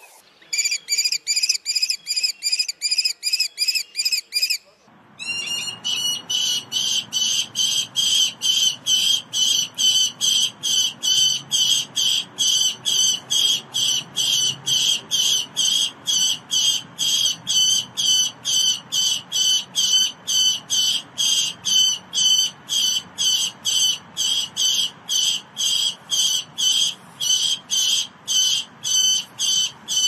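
Falcon calling: a long, fast run of sharp, high repeated notes, about two to three a second, with a short break about five seconds in.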